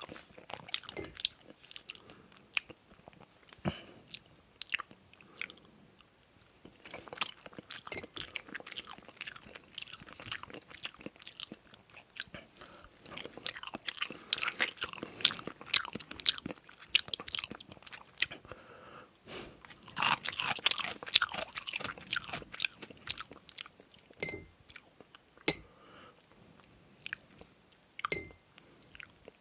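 Close-miked eating: chewing and biting with wet mouth smacks, coming in uneven bursts, busiest in the middle, then thinning to a few sharp clicks near the end.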